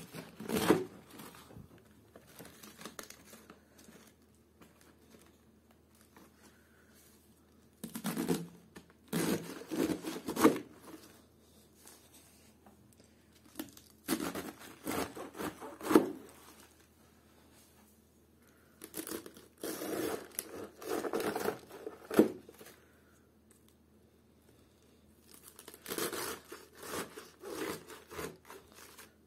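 Kitchen knife cutting into a raw white cabbage head, in about five bouts of cutting a few seconds apart with quiet between them. Two of the bouts end in a sharp snap.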